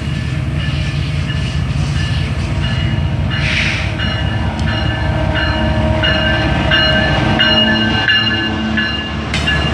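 Diesel-electric freight locomotive (Pakistan Railways GEU-40) pulling a loaded coal train past at close range: a steady engine rumble that grows louder as the locomotive goes by. A short hiss comes about three and a half seconds in, and short high ringing tones repeat on and off through the middle.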